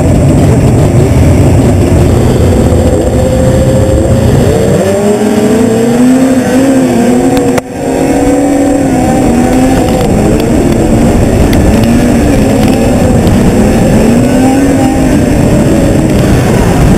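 Race snowmobile engines: a dense low rumble at the start line, then about four and a half seconds in the sled launches and runs hard in a pack, its engine pitch rising and falling. There is a brief dropout just before halfway.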